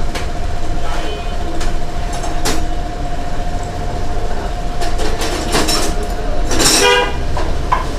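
Workshop noise as a motorcycle is dismantled: scattered clinks and knocks of tools and parts over a steady hum and low rumble, with a brief buzzy note near the end.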